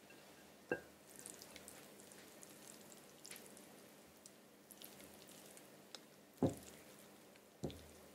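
Tongs handling cold, sauced cappellini as it is piled onto a plate: faint wet squishing and light crackle from the noodles. Three sharp knocks of the tongs against the dish come about a second in and twice near the end.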